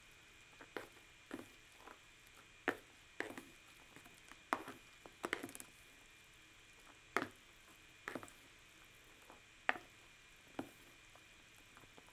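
Chopsticks mixing instant yakisoba noodles with their sauce in a plastic tray: faint, irregular clicks and taps as the chopsticks knock against the tray and turn the noodles.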